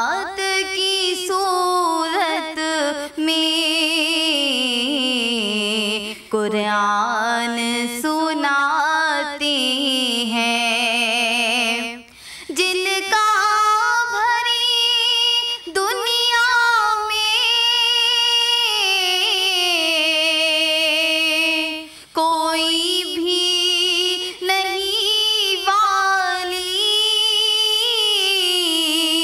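A young girl's solo voice reciting an Urdu naat, sung unaccompanied in long, ornamented held notes, with short breaks for breath a few times.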